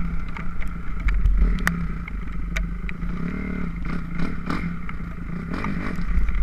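2006 Kawasaki KX250F's single-cylinder four-stroke engine running as the dirt bike is ridden, with a rev that rises and falls in pitch about halfway through. Short sharp clattering ticks come through over it.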